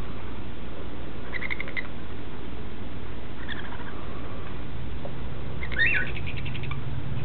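Baby sun conure chicks making short, rattling calls in three bouts: one about a second in, a fainter one a little past the middle, and the loudest, rising one near the end. A steady low hum runs underneath.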